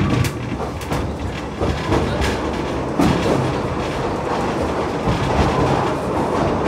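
Open carriages of a narrow-gauge steam train running on the rails: a steady rumble of wheels on track with several sharp clacks in the first few seconds, the loudest about three seconds in.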